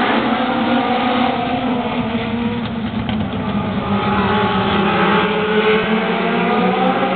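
A pack of race cars on an oval track, several engines running hard together, their pitches sliding up and down as the cars pass.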